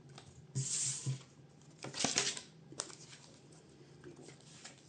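Tarot cards being handled: two brief papery swishes of cards sliding from the deck, the first about half a second in and the second about two seconds in, then a light click.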